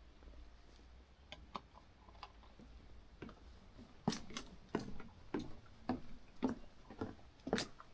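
Footsteps of a hiker walking on a mountain trail: scattered light steps at first, then a steady walking rhythm of about one step every half second or so from about halfway in.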